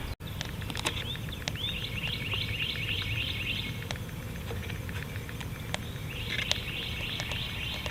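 A bird singing a rapid trill of repeated chirps, in two bursts of a few seconds each, over a low steady outdoor rumble, with a few light clicks scattered through.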